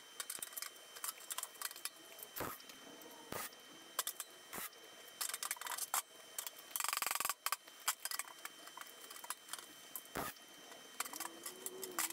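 Scattered light clicks and knocks as the steel engine lid and its clamps are handled, with one short, rough burst of noise about seven seconds in: a tack weld on the lid's seam.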